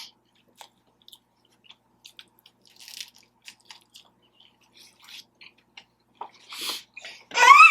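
Close-miked eating of a taco: soft bites, crunches and wet mouth clicks, scattered and irregular. Near the end comes a short rising vocal sound from the eater.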